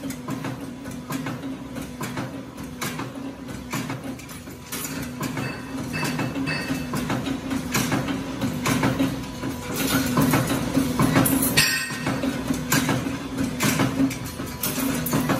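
Metalworking machinery running: a steady hum with irregular metallic clicks and clanks, getting louder about five seconds in.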